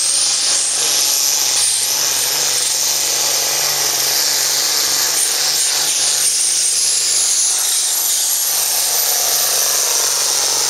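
Turbocharged diesel engine of a red International hot farm class pulling tractor running flat out under full load as it drags the sled. A high whistle climbs at the start and then holds steady over the engine's even drone.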